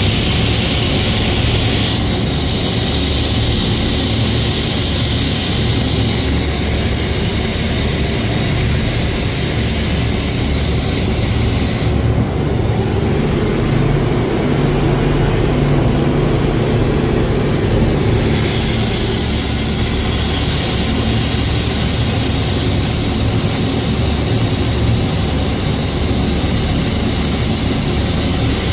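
Loud, steady machinery noise with a low engine-like hum; for several seconds in the middle the higher hiss drops away and the low hum comes forward.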